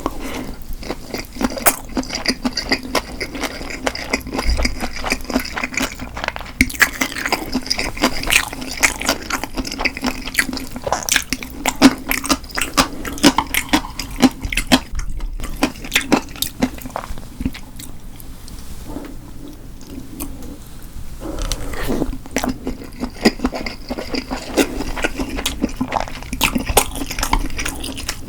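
Close-miked eating sounds: a person chewing and biting food, made up of many small irregular clicks and smacks. There is a quieter lull about two-thirds of the way through before the chewing picks up again.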